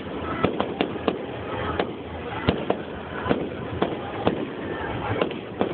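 Fireworks going off: about a dozen sharp bangs and cracks at irregular intervals, some close together, over a steady background noise.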